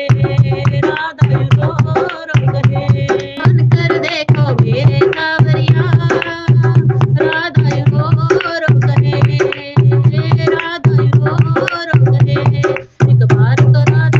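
Devotional Radha-Krishna bhajan music with tabla-like percussion over a heavy bass beat that pulses about once a second. A melody that bends in pitch runs over it, and the music dips briefly near the end.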